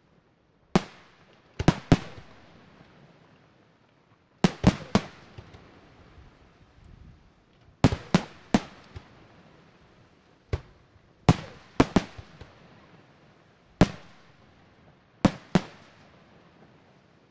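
Aerial firework shells bursting in a display: about fifteen sharp bangs, often two or three in quick succession, each trailing off in a fading echo.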